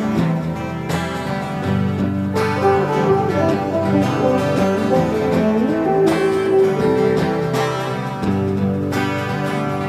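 Background music led by plucked acoustic guitar, a steady instrumental accompaniment.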